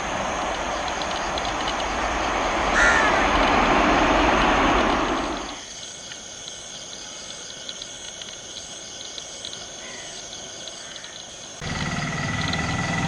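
Boeing 737 jet engines running as the airliner passes on landing, a steady roar that swells for the first few seconds. The roar cuts off suddenly about five and a half seconds in, leaving a much quieter background, and comes back just as suddenly about twelve seconds in.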